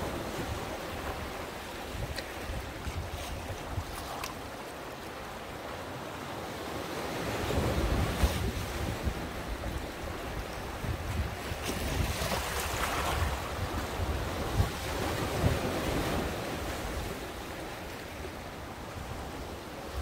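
Sea waves washing in against the shore, with wind buffeting the microphone; the surf swells louder about eight seconds in and again around twelve seconds.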